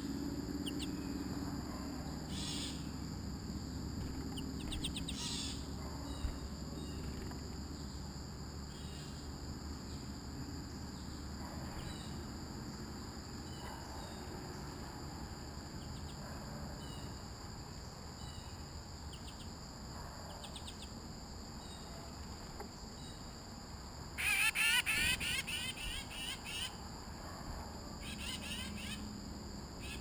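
Small songbirds giving scattered short chirps, then a loud burst of rapid twittering about 24 seconds in that lasts a couple of seconds, over a steady high-pitched insect drone.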